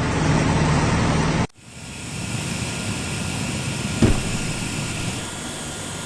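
Steady running noise of heavy machinery. After about a second and a half it cuts abruptly to another machine's steady drone with a faint high whine, and a single knock comes about four seconds in.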